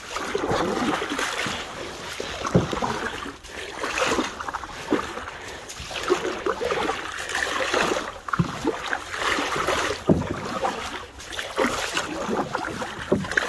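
Canoe paddles stroking through calm water: a water swish with each stroke, recurring unevenly every second or two.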